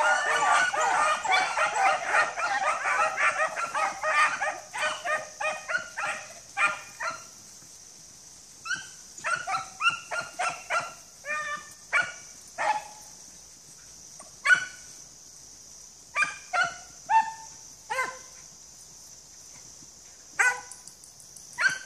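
A pack of hunting beagles baying: many voices overlapping in full cry for the first four seconds or so, then thinning to scattered single bays and barks.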